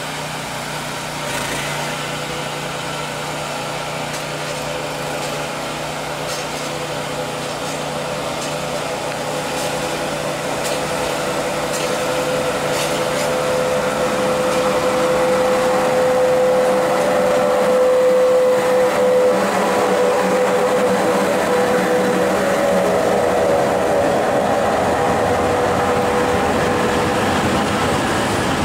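Pesa Gama 111Ed electric locomotive hauling a train of loaded coal wagons approaches and passes, growing steadily louder, with a steady humming tone from the locomotive. As the wagons roll by near the end, the sound of wheels on rails takes over. A separate small engine runs steadily underneath until about halfway.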